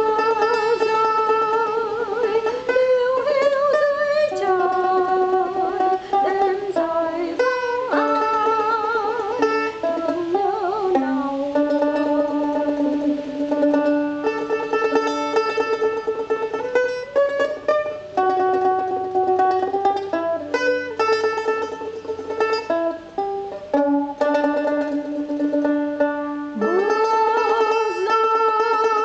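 A slow song: a solo voice sings long held notes with a wavering pitch, in phrases with short breaks, over plucked-string accompaniment.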